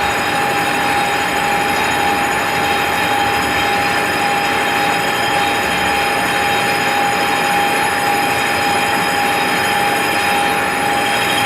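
Motor-driven sharpening machine running steadily, a constant high whine over a loud hiss of metal being ground or cut, with no change in pitch or level.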